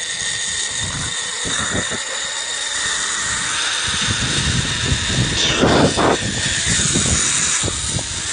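Zip-line trolley pulleys running along the steel cable with a steady high whine, while wind buffets the phone's microphone. The rushing grows from about halfway through, with a louder gust near the end.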